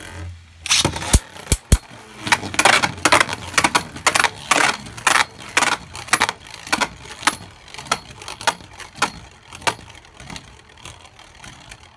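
Two Beyblade Burst spinning tops clashing in a plastic stadium: a run of sharp plastic-and-metal clacks, about two a second, growing fainter near the end as the tops lose spin.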